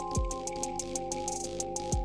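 Background electronic music: sustained synth notes over rapid hi-hat ticks and deep kick drums that drop in pitch.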